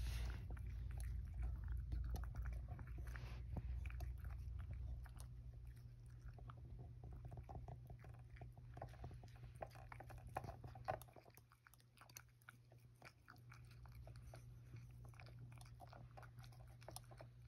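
A cat chewing and crunching chopped carrot mixed with bonito flakes from a small ceramic bowl: a run of quiet, irregular crunches and clicks over a steady low hum.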